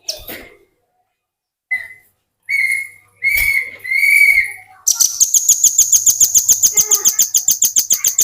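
Velvet-fronted nuthatch singing: a few short whistled notes, then about five seconds in a loud, rapid trill of about a dozen notes a second.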